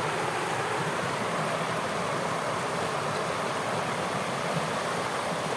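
Shallow stream water running in a steady rush.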